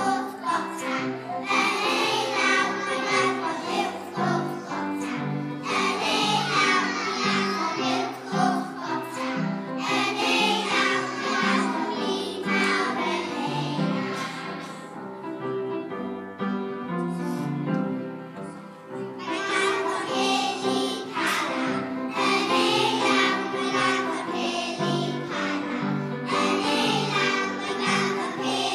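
A group of young children singing a song together in unison, over instrumental accompaniment. The singing thins out for a few seconds around the middle.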